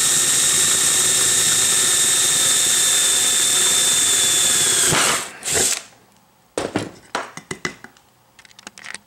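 Bosch cordless drill running at a steady speed as it bores a hole through a small metal bar, winding down about five seconds in, with one short second burst just after. Then a scatter of light clicks and taps as the metal is handled.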